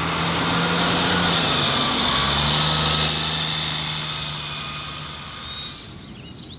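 A school bus driving past: its engine hum and road noise swell, the engine note drops about two seconds in as it goes by, and the sound fades away over the next few seconds.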